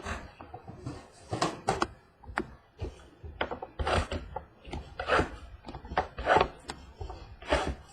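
Irregular rustling, crinkling and scraping of packaging and cardboard as a box of baseball cards is opened and the packs and cards are handled, with a few louder rustles through the stretch.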